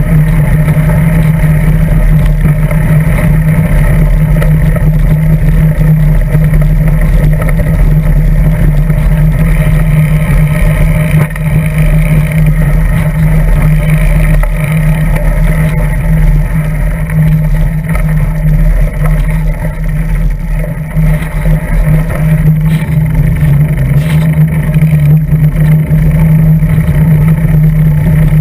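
Loud, steady rumble of road vibration and wind picked up by a GoPro Hero 2 clamped to a bicycle's seat post as the bike rides over a gravel track.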